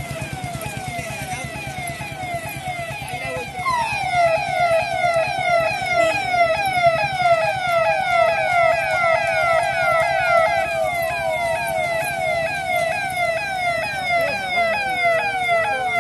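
Sirens of several police jeeps in a convoy sounding together, each repeating quick falling sweeps a few times a second and overlapping one another. A louder siren joins about four seconds in.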